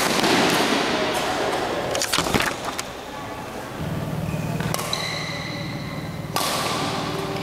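Badminton rackets striking a shuttlecock during a rally, a few sharp smacks echoing in a large sports hall.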